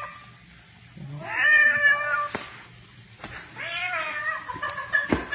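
Domestic cat meowing twice, each call drawn out for about a second, with a fainter held cry near the end.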